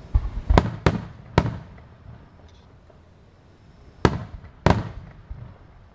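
Aerial fireworks shells bursting. There is a quick cluster of sharp bangs in the first second and a half, then two more about four seconds in, each trailing off in a long echo.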